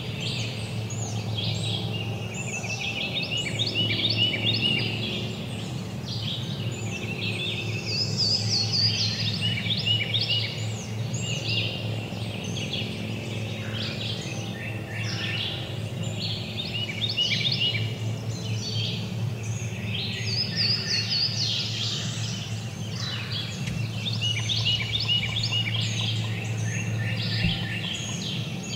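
Woodland songbirds singing and chirping, many overlapping songs and trills at once, over a steady low hum.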